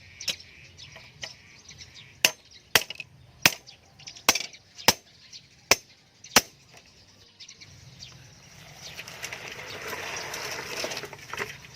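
A series of about eight sharp knocks, one every half second or so, over the first six seconds. Then a rushing, scraping noise builds up from about eight seconds in and fades near the end.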